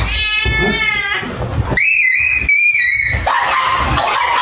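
Dog whining in high-pitched cries: a wavering cry, then a long high one held for over a second, followed by a lower drawn-out whine.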